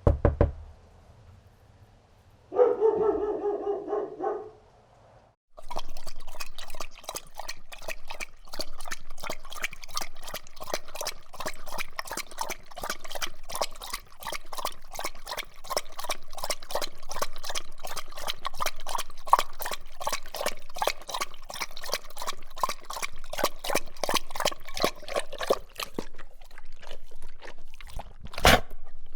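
Dog lapping water close up: a long run of rapid, wet laps lasting about twenty seconds. It follows a thump and a short pitched dog vocal.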